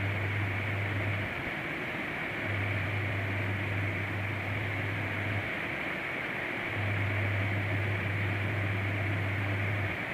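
Steady background hiss with a low electrical hum that cuts in and out, running about three seconds at a time with gaps of a second or so.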